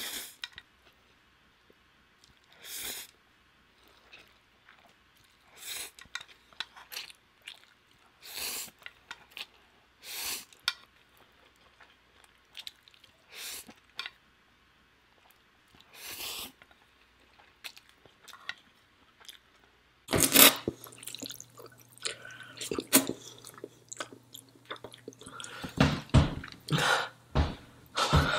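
Close-miked eating of instant noodles: slurps and chewing in short separate bursts every two to three seconds. About two-thirds of the way in they turn louder and come closer together, over a steady low hum.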